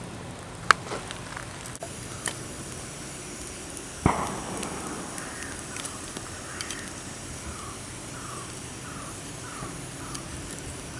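Campfire burning with sharp crackling pops. About four seconds in, a single loud bang with a short ringing tail; near the end, a bird calls a run of about six short, falling notes.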